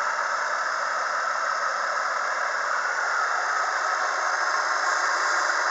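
Chevrolet TrailBlazer 4.2 L Vortec straight-six idling steadily, heard from the open engine bay, with a thin steady whine running through it.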